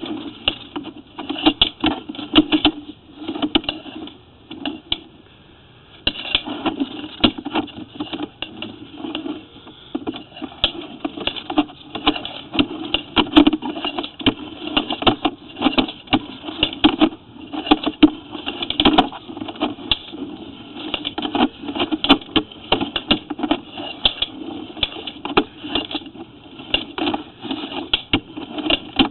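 Sewer inspection camera gear clattering: dense, irregular clicks and knocks, with a brief pause a few seconds in.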